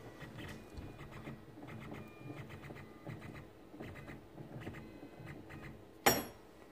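Faint scraping and rubbing from hands and the camera moving about the machine during setup, with one sharp knock about six seconds in.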